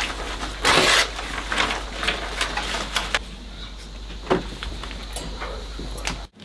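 Paper rustling and small handling knocks over a steady low hum, with one louder rustle under a second in.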